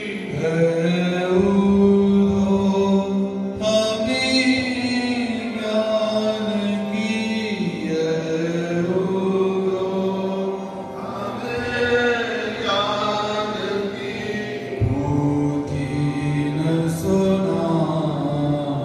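Hindu devotional bhajan to Krishna sung through microphones, the voice holding long melodic notes that glide between pitches in a chant-like style.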